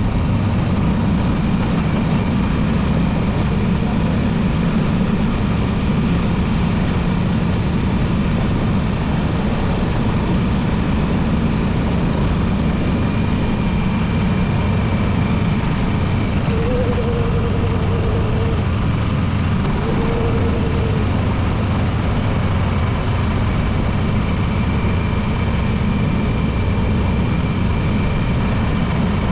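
Macbor XR5 motorcycle running steadily on the road, its engine's low drone mixed with wind and road noise. Two short, faint tones sound about halfway through.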